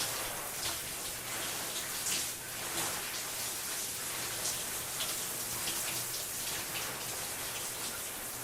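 A shower running: a steady hiss of water spray falling and splattering, broken by frequent brief, sharper splashes.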